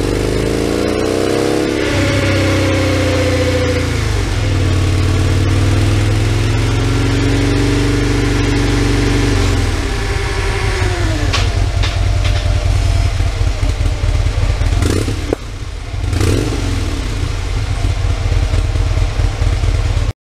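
2015 Harley-Davidson Road Glide V-twin running through its stock catalyst header and stock mufflers. It is revved up and held at raised RPM twice, then drops back to a loping, uneven idle, and the sound cuts off abruptly near the end.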